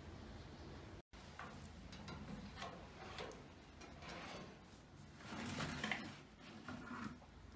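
Cast-iron firebox door of a wood-burning cooking stove being handled and swung open: a series of short metal clanks and scrapes, the loudest about two-thirds of the way through.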